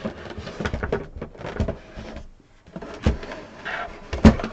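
Mini hi-fi main unit being turned around by hand on a desk: scraping and a string of light knocks, with two louder knocks about three seconds in and just after four.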